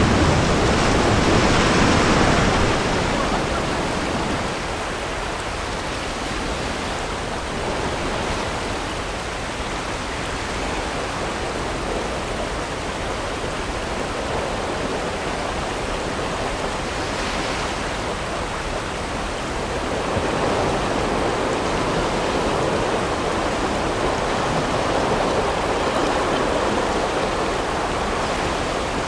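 Whitewater rapids rushing around a raft, a steady loud roar of churning water. It is loudest at first, eases to a lower rush about four seconds in, and swells a little again about two-thirds of the way through.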